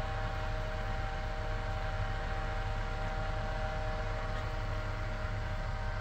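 Small ceiling fan of a Farpoint Cool and Bright screw-in socket fan light running on high: a steady whir with a thin, steady whine over a low hum.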